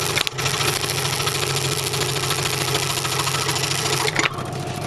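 Delta scroll saw running, its blade cutting wood with a fast, even buzz and hiss over the motor's steady hum. About four seconds in the cutting noise drops away while the saw keeps running.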